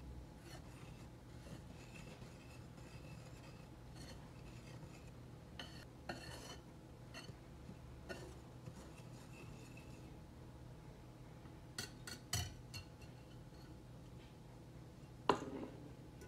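Wire balloon whisk stirring flour and sugar in a glass mixing bowl, its wires scraping and clinking faintly against the glass. There are a few louder clinks about twelve seconds in and a sharper one near the end.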